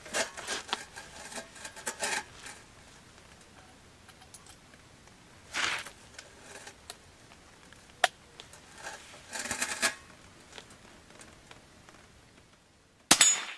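Handling rustles and metallic clicks from a Martini-action Birmingham Kangaroo rifle chambered in .32-20 Winchester, then a single rifle shot near the end, the loudest sound.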